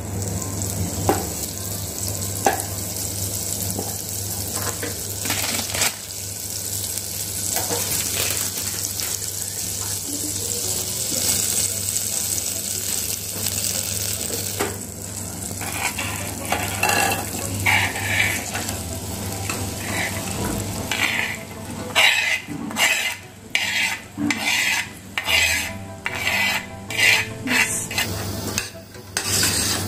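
Butter sizzling as it melts and foams in a stainless steel pot. From about halfway through, a metal spoon stirs corn kernels in the pot, scraping against the steel in strokes roughly once a second.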